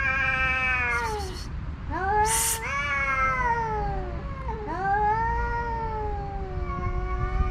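Two male cats caterwauling at each other in a territorial standoff over a female: long drawn-out yowls, each rising and then slowly sagging in pitch, three in a row with a brief harsh burst about two seconds in. It is a yelling match rather than a physical fight.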